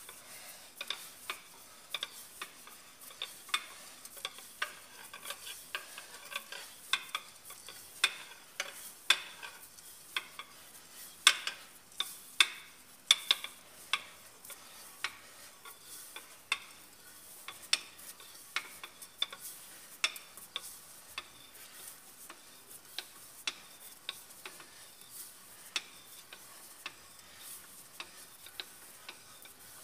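Irregular metal-on-metal clicks and ticks, about one or two a second with some much louder, from a spanner turning the nut on the threaded rod of a screw-type liner puller as it draws a cylinder liner out of an Isuzu engine block.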